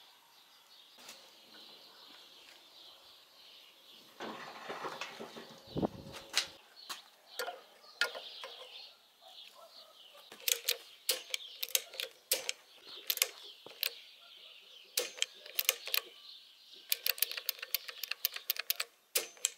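Sharp mechanical clicks and clacks of a three-pole magnetic contactor, its armature snapping as its top button is pressed and released by hand. They come in quick clusters through the second half, after a stretch of handling noise. Birds chirp faintly behind.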